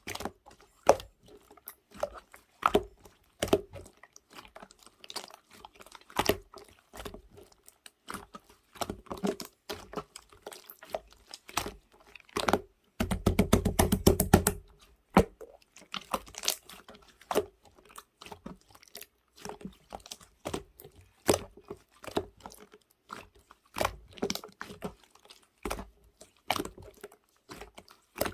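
Clear slime being squished and pressed by hand, giving irregular sticky clicks and pops, with a dense run of quick squelches about thirteen seconds in.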